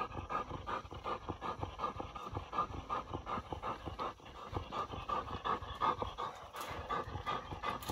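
A coonhound panting quickly and steadily right beside the microphone.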